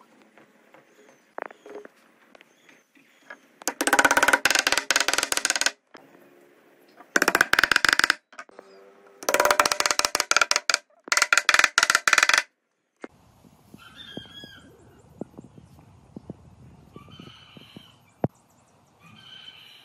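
Wooden mallet hammering wooden bowtie keys into glued mortises in a pine board, in four bursts of rapid blows. Near the end, birds chirp in the background.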